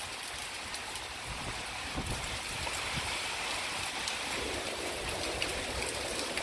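Steady hiss of heavy thunderstorm rain, with gusting wind that grows stronger in the second half.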